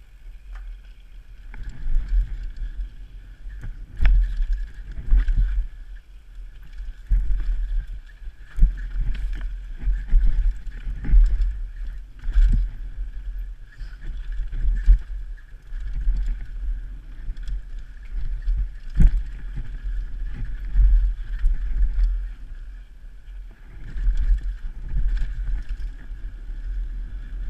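Mountain bike descending fast on a rough dirt downhill trail: wind buffets the microphone as a heavy, uneven rumble, with sharp knocks and rattles as the bike hits bumps and rocks, loudest about four seconds in and again near nineteen seconds.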